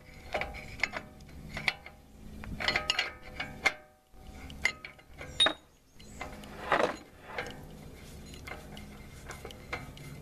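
Light metal clinks and clicks, some with a short ring, from a hub-nut socket and the last axle nut on the front spindle of a 4x4 Ford F-150 as the nut is turned off by hand. The nut comes off easily, as it should when only snugged and backed off a quarter turn.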